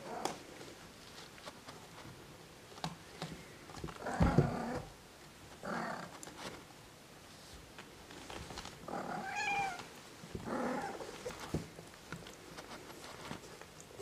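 Norwegian Forest Cat kittens mewing: about four short high mews, the loudest about four seconds in, with small clicks and rustles of fur and bedding between.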